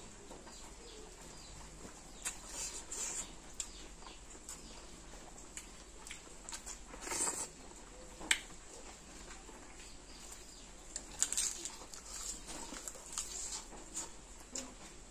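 Close-miked mukbang eating sounds: wet chewing and lip smacks, with fingers squishing rice and chicken curry on a banana leaf. They come as scattered short clicks and bursts, busiest about two to three seconds in, around seven to eight seconds, and again near the end.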